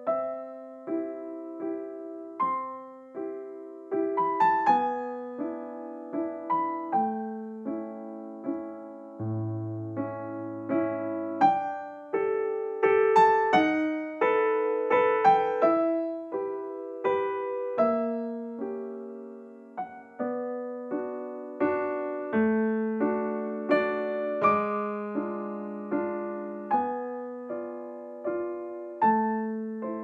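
Slow, gentle background piano music: single notes and chords struck and left to ring and fade.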